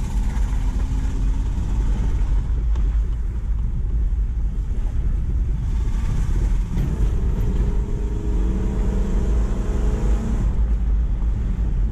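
Toyota 1UZ-FE VVT-i 4.0-litre V8 in a Mitsubishi Delica van heard from inside the cab while driving, now running through a fitted exhaust and sounding quiet. There is a steady low rumble with road noise, and the engine note climbs and grows stronger past halfway as the van picks up speed.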